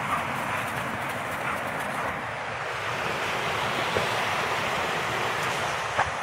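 Steady rushing of a creek's running water, with a couple of faint clicks.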